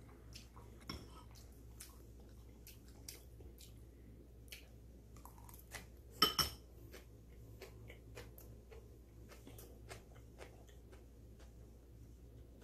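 A person chewing food with open-mouthed lip-smacking: a run of small wet clicks, with a louder click about six seconds in.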